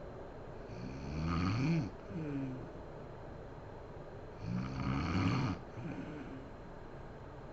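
Woman snoring in her sleep: two loud snores with a rising pitch, about a second in and again past four seconds. A softer breath follows the first one.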